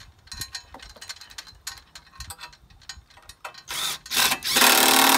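Scattered light clicks and rattles, then, from about four and a half seconds in, a cordless drill running steadily and loudly as it drives a screw into the wooden dock.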